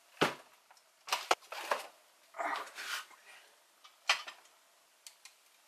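Steel parts of a scale-model hydraulic excavator knocking and clattering as it is handled and assembled on a workbench: about four sharp metal knocks, with scraping and shuffling in between.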